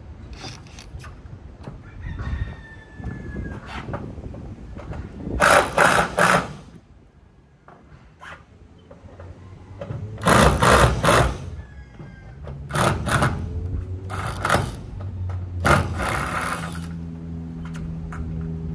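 Power drill driving screws into metal roofing sheets in several short bursts, the loudest clusters about a third of the way in and just past halfway.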